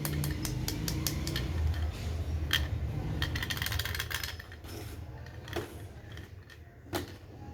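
Plastic pop tubes being stretched and squeezed, giving rapid crunchy clicks and crackles over a low rumble. The clicking is dense for the first four seconds or so, then thins to a few separate pops.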